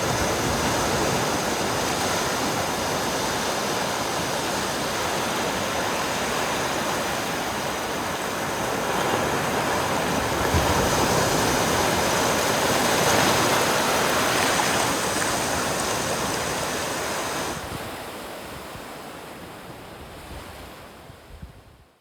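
Atlantic Ocean surf washing onto the beach, a steady rush that swells about ten seconds in and fades away near the end.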